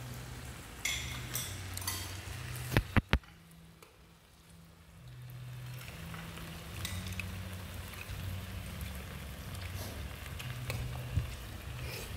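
Food sizzling on a tabletop grill, with light clinks of dishes and utensils. Three sharp knocks come in quick succession about three seconds in.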